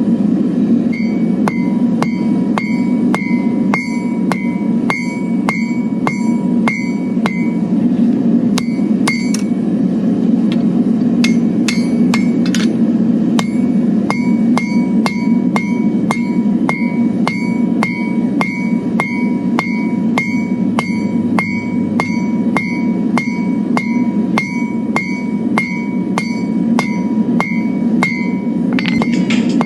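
Hand hammer striking hot steel on an anvil, about two to three blows a second, each with a bright metallic ring, with a short pause about ten seconds in: rounding a bar into a ring. A steady low drone runs underneath.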